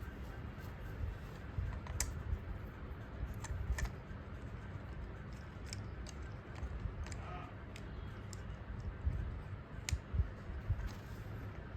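Scattered small clicks and plastic taps of hands tightening the screws on a toy train's battery box, over low handling rumble.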